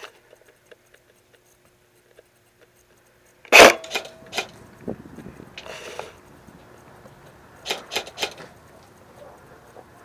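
Sharp cracks and clicks during an airsoft skirmish. One very loud crack comes about three and a half seconds in, then scattered ticks, a brief hiss around the middle, and three quick clicks near the end.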